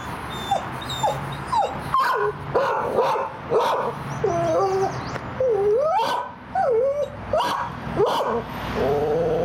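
Recorded dogs barking, yipping and whining, played loud through a loudspeaker for a noise test. Many short calls follow one another, several rising or swooping in pitch.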